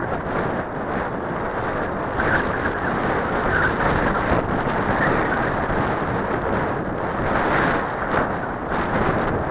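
Strong gusty wind buffeting the action camera's microphone: a loud, steady rush that swells and eases with the gusts.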